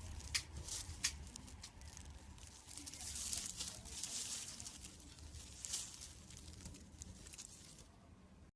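Slime being squeezed and stretched by hand, making sticky clicks and crackling pops: two sharp clicks in the first second, then a run of crackling that fades and stops abruptly near the end.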